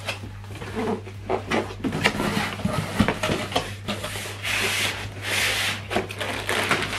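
Cardboard packaging being handled: box flaps and foam inserts rubbing and scraping against the cardboard, with irregular knocks and a longer scrape about two-thirds of the way through. A steady low hum runs underneath.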